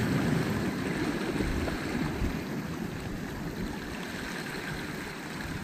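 Steady wash of seawater, small waves rushing against the shore with no distinct events.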